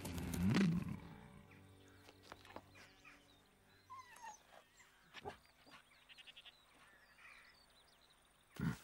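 A horse gives a low nicker that wavers up and down in pitch during the first second. Faint bird chirps and small scattered clicks follow, with a short, louder noise near the end.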